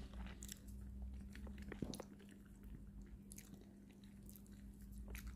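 A person chewing and biting food close to the microphone: faint, scattered crunches and mouth clicks over a low steady hum.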